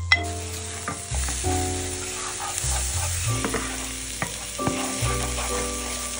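Chopped onion and garlic sizzling in a hot frying pan, starting as they drop in at the beginning, while a wooden spatula stirs them. Background music with sustained chords and a bass line plays underneath.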